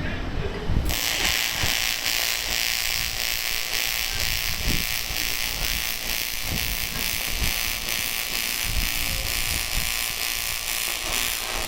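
AC TIG welding arc on aluminium: a steady buzzing hiss that starts about a second in and cuts off just before the end.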